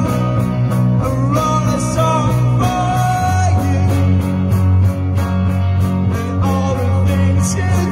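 Live rock band playing: electric guitars over bass and a steady drum beat, the bass dropping to a lower note about three seconds in.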